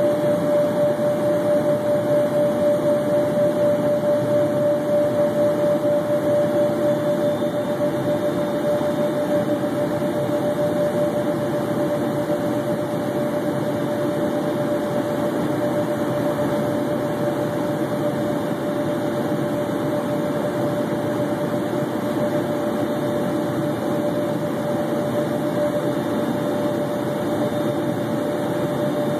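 Cabin noise of an Embraer Phenom 100 in descent: a steady rush of airflow and its twin turbofan engines, with a steady humming tone that pulses for the first several seconds and then evens out.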